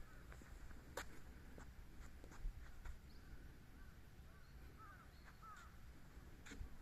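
Quiet outdoor ambience: a low rumble with a few scattered sharp clicks and faint short bird calls, a cluster of them a little after the middle.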